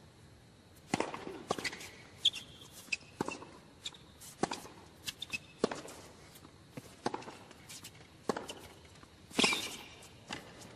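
Tennis rally on a hard court: sharp racket strikes and ball bounces about every second, the loudest about a second before the end, with short high shoe squeaks between some of the shots.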